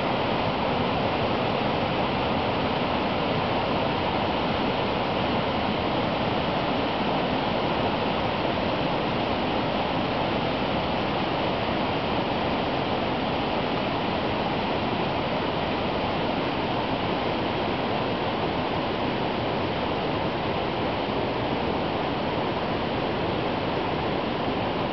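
Stream cascade swollen with spring flood water, a steady, dense rush of water pouring over rocks.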